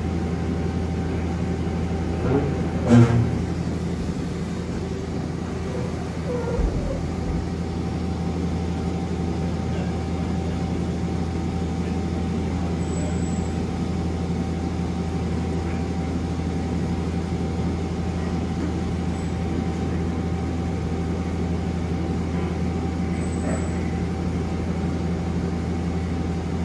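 Okuma Captain L-470 CNC lathe running under power, its spindle turning the chuck: a steady machine hum with a thin constant tone over it. A sharp clunk sounds about three seconds in, and a smaller knock a few seconds later.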